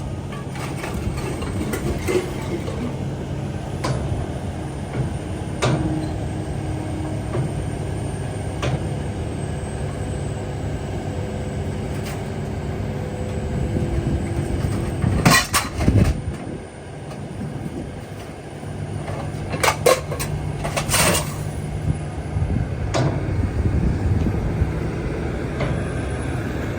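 Heavy diesel machinery running steadily at a scrapyard magnet unloading, with loud metal clanks and bangs of scrap dropping, twice in the middle stretch.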